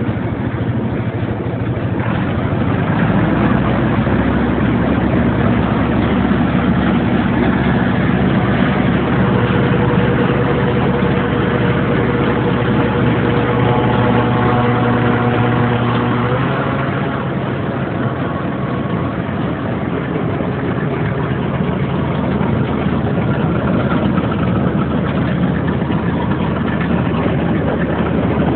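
Heavy farm machinery running steadily: a tractor engine powering an OMC Model 420 grinder mixer, with a constant mechanical hum. The engine note steps slightly about sixteen seconds in.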